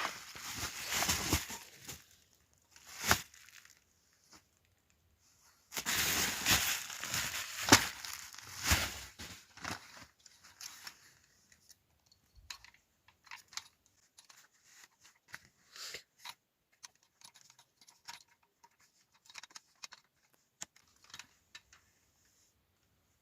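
Packaging being torn open and crinkled during an unboxing: loud ripping and rustling in the first couple of seconds and again for several seconds in the middle. The rest is a string of small scattered clicks and taps from handling.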